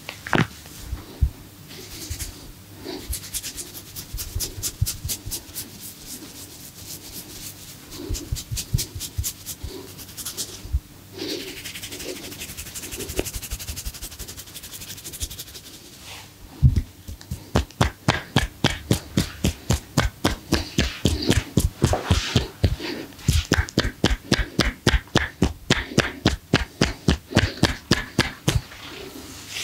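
Percussive massage strokes: hands slapping and tapping on the body, in scattered strikes at first, then a steady run of sharp strikes about three to four a second through the second half.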